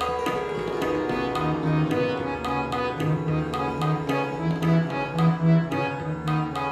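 Harmonium playing a sargam alankar exercise at medium tempo, its reed notes changing step by step, over a steady tabla accompaniment.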